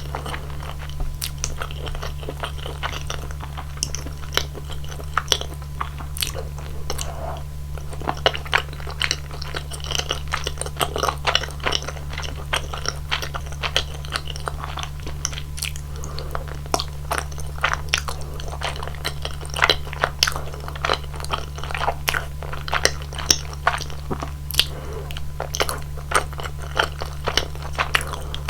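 Close-miked eating sounds: chewing rosé tteokbokki's chewy rice cakes in a thick creamy sauce, with many irregular sharp mouth clicks, over a steady low hum.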